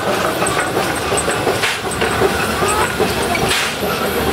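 MÁV class 411 steam locomotive (an ex-USATC S160 2-8-0) moving slowly, a puff of exhaust steam hissing out about every two seconds over a steady rumbling running noise.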